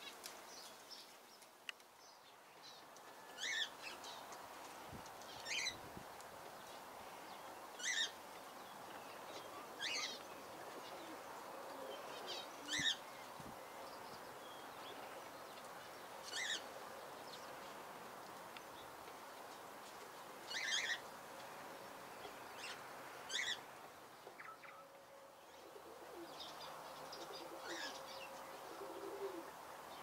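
Birds calling: short, sharp calls repeating every two to three seconds over a faint steady outdoor background, with low cooing near the end.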